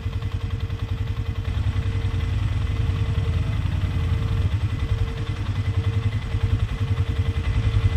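Polaris Sportsman 500 ATV's single-cylinder engine running steadily at low revs, a fast even low pulse with a faint steady whine above it.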